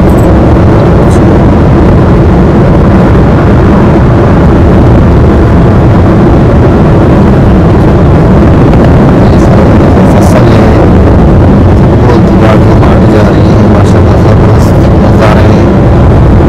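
Loud, steady rumble of a vehicle on the move, engine and road noise so strong that it overloads the microphone.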